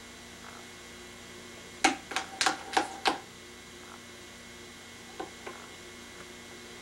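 A plastic spoon knocking against a plastic baby bowl: five quick clacks about two seconds in, then two faint taps near the end.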